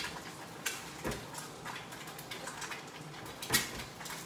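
A few light clicks and knocks of a stemmed beer glass being fetched and handled at a kitchen counter, the clearest about three and a half seconds in.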